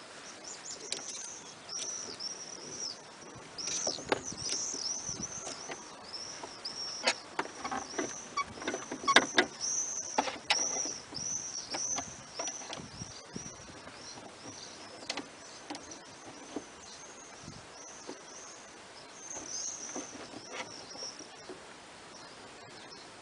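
Sharp clicks and knocks of a screwdriver working the deadlocked lock mechanism inside a VW Golf Mk4 door, an attempt to force the lock open. They are loudest and most frequent in the middle. Behind them a bird chirps over and over with a short high note.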